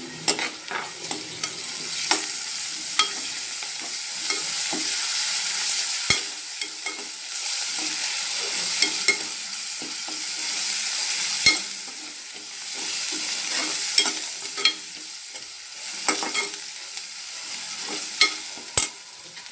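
Onions, green chillies and curry leaves frying in oil in a metal pressure cooker, a steady sizzle, while a steel spoon stirs them and clicks and scrapes against the pot many times.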